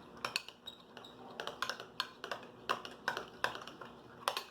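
Utensils clicking and scraping against bowls while stirring a mixture of glue and shaving foam for slime, in irregular taps several times a second.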